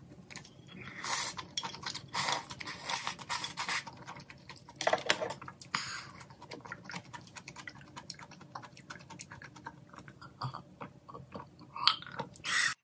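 Close-miked eating of malatang noodles: slurping and chewing in a series of noisy bursts. Near the end come sips from a glass.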